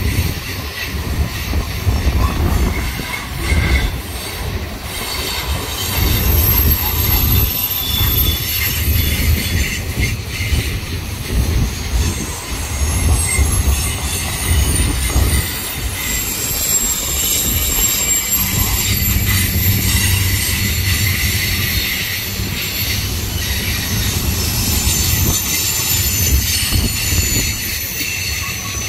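Freight cars of a BNSF manifest train rolling past on a curve: the steel wheels squeal in several thin, high, shifting tones over a steady low rumble of wheels on rail.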